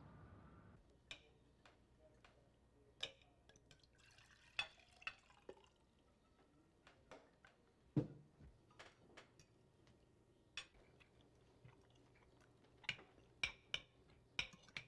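Faint, scattered clinks and taps of cutlery on plates and glasses at a dinner table, about a dozen, with the loudest about eight seconds in and a quick cluster near the end. A faint outdoor ambience stops about a second in.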